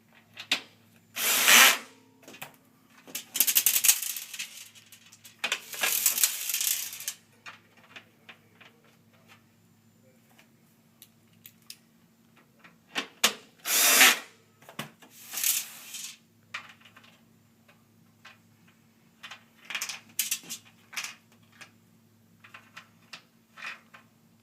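Drill driving self-tapping sheet-metal screws into a patio table's legs, which cut their own holes. It runs in about six short bursts of a second or two each, with small clicks and taps of parts being handled between them.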